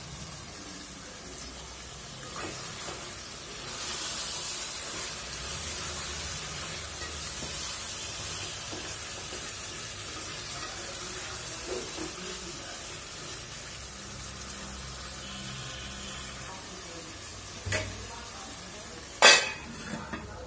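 Chopped onions and meat sizzling as they fry in a steel pot, with a spatula stirring and scraping through them; the sizzle grows louder about four seconds in. Near the end, two sharp metal clanks on the pot, the second the loudest.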